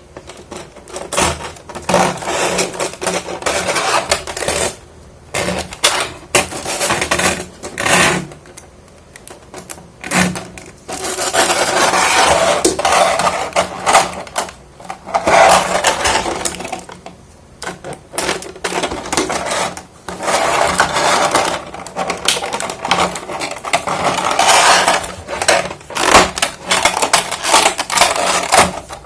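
Plastic packaging and small plastic figure parts being handled close to the microphone: crinkling and rustling with light clicks and clatter, in irregular bursts with short pauses.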